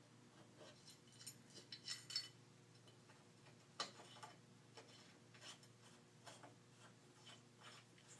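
Quiet clicks and light taps of a mounting bracket being handled and screwed onto the underside of a camcorder. A cluster of clicks comes about two seconds in, and one sharper click about four seconds in.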